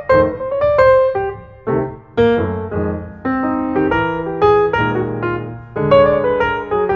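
Background piano music: a melody over chords of struck notes that ring and fade.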